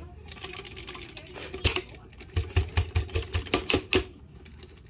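A quick run of light, sharp taps or clicks, about five a second, starting about two seconds in after a single click.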